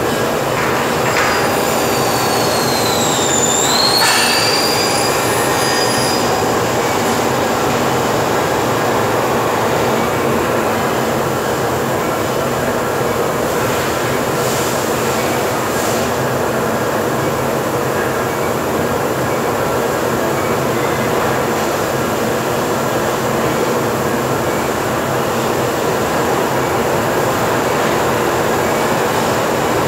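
Steady, loud machine noise from a Bomar Alu 400 aluminium-profile cutting saw and the factory machinery around it. About two to six seconds in, a high metallic squeal dips in pitch and climbs back up.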